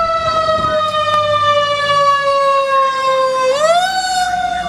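Fire engine siren wailing: a tone that slowly falls, is quickly brought back up about three and a half seconds in, then slowly falls again.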